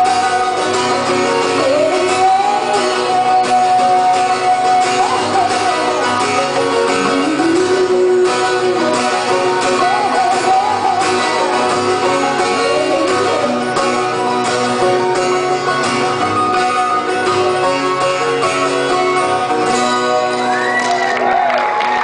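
Live acoustic folk song: a woman singing over acoustic guitar accompaniment, with long held vocal notes.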